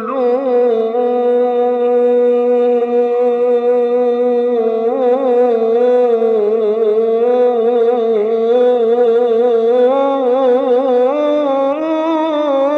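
A male voice chanting an Islamic ibtihal unaccompanied, drawing out one long ornamented melisma with rapid wavering turns, over a steady held note.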